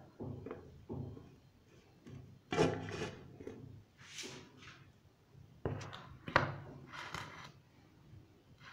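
Metal loaf tin being lifted out of a large aluminium pot where it baked on a bed of salt: a string of knocks and scrapes of metal against metal, the loudest about six seconds in.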